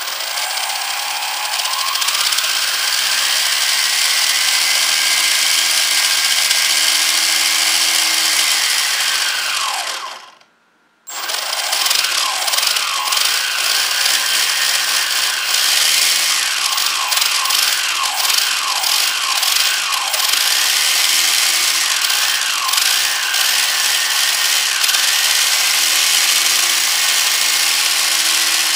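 2200 kv brushless motor spinning a 3D-printed plastic gearbox, axle and wheels: a loud whine over a rushing noise. It winds up, holds speed and winds down again several times as the throttle changes. It stops briefly about ten seconds in, then runs with quick speed changes and a last spin-down near the end.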